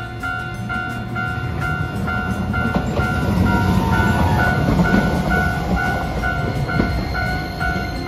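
Japanese level-crossing alarm ringing in a steady electronic 'kan-kan', about two and a half strokes a second, while a Hiroden 5100-series Green Mover Max low-floor tram passes close by. The tram's rumble and wheel-on-rail noise swell in the middle and fade near the end.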